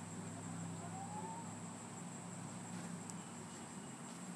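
Faint outdoor background: a steady low hum and a thin high-pitched insect drone, with a short faint rising whistle about a second in.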